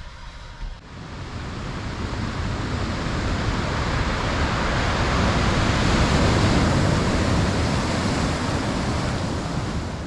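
Rushing surf of ocean waves, swelling over about five seconds and then slowly easing off.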